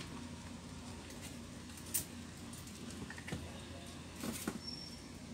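A few faint clicks and light taps from a laptop's plastic case being handled during reassembly: one about two seconds in and a small cluster near the end.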